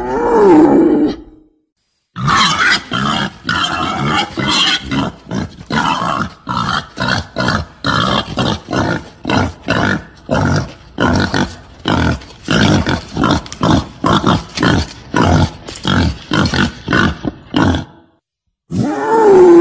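Recorded wild boar calls played as a hunting lure: a drawn-out wavering call in the first second, then a long run of short grunts about two a second, and another wavering call starting near the end.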